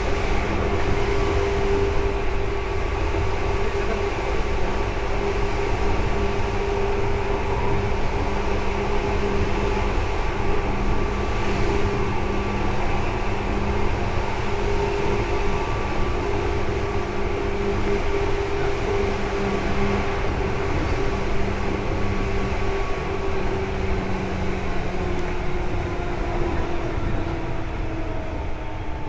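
Seibu 2000 series electric train running, heard from inside the car: a steady rumble of wheels on rail with a constant motor hum. The hum's pitch drops slightly near the end as the train slows.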